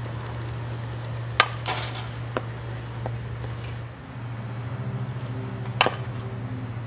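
Two sharp cracks of a softball bat hitting a ball, about one and a half seconds in and again near the end, over a steady low hum.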